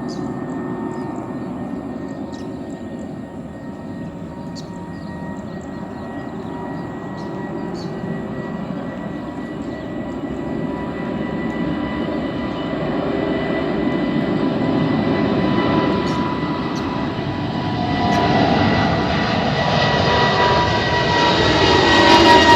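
Airliner engines at takeoff power: a steady rush with a high whine, growing louder as the plane comes closer, the whine starting to drop in pitch near the end.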